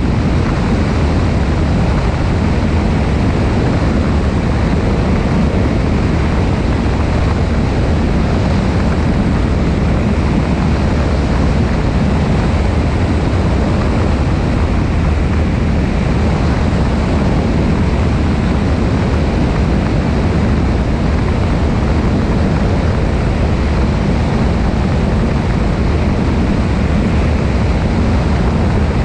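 Cessna 172's piston engine and propeller droning steadily in cruise, with wind rushing over a wing-mounted camera.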